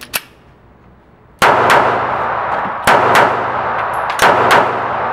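Taurus PT738 TCP .380 ACP pocket pistol being fired five times: a single shot, then two quick pairs. Each shot rings on in the echo of an indoor range. Two light metal clicks come first as the magazine goes in and the pistol is readied.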